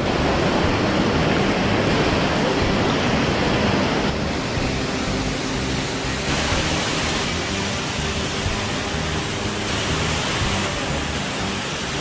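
Waterfall pouring over rocks into a pool: a steady rush of falling water, shifting slightly in tone a few times.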